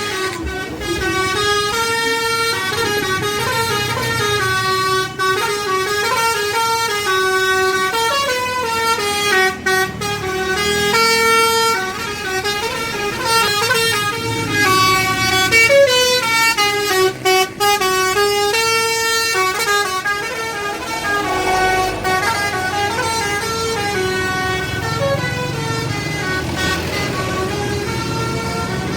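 SJM Trans bus's multi-note "basuri" telolet air horn playing a melody, its pitch stepping up and down through many notes for about twenty seconds before it softens.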